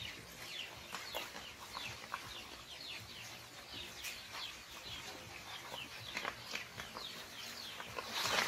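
Many short, high-pitched chirps, each falling in pitch, repeated several times a second, with a louder rush of noise near the end.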